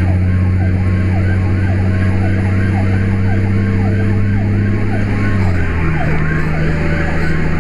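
Fire engine running with its siren cycling rapidly up and down over a steady engine drone, heard from inside the cab. The engine's pitch drops about five and a half seconds in, as it slows or shifts.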